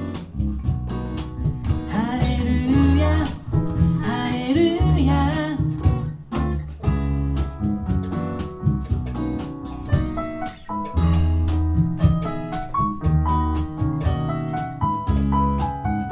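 Live acoustic band playing: a strummed Gibson J-45 acoustic guitar with electric piano, cajon and bass. A voice sings a phrase from about two to six seconds in, and the instruments carry on without singing after that.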